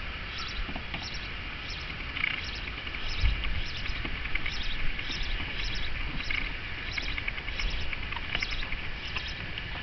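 Small birds chirping over and over, short high chirps about twice a second, over a faint low background rumble.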